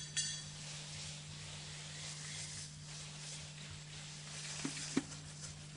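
Steady hiss with a low steady hum, broken by two short soft knocks about four and a half and five seconds in.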